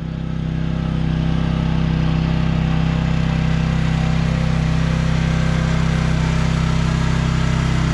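Small mini-excavator engine running steadily at a constant speed with a fast, even pulse, swelling slightly over the first couple of seconds.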